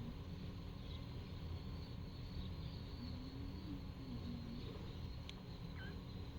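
Outdoor ambience: a steady low rumble with a faint steady hum, and a few faint short chirps about five to six seconds in.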